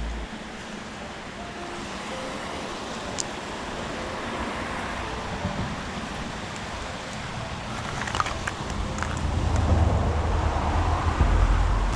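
Steady road traffic noise, an even wash of passing cars, with faint background music under it that comes back louder near the end.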